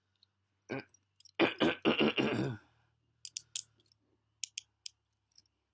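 A short throaty vocal noise from a person, then a few sharp metallic clicks in two quick pairs as the steel chain-link handcuffs are worked with a key.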